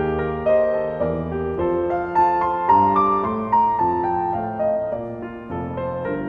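Background piano music: a slow, gentle melody of single notes over sustained chords.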